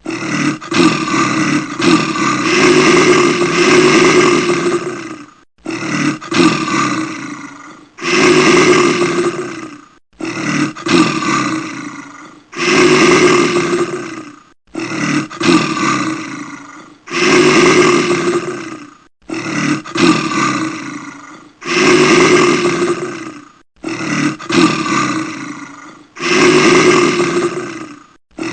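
A person snoring very loudly in sleep. Each breath brings a shorter snore and then a longer one, repeating about every four and a half seconds.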